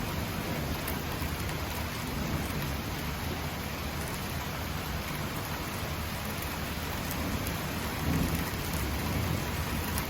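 Heavy downpour from a sudden thunderstorm, a steady hiss of rain on surfaces, with a low rumble swelling about eight seconds in.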